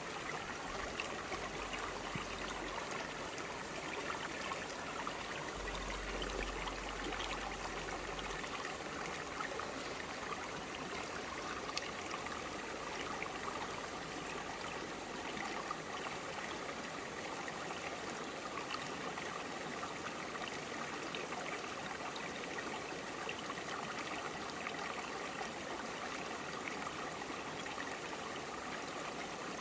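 Clear mountain stream flowing and babbling over broad rocks, a steady rush of water with small trickles and gurgles.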